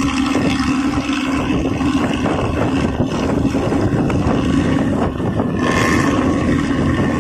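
Steady rushing road noise of a moving vehicle with a steady low engine drone underneath, and a brief brighter hiss about six seconds in.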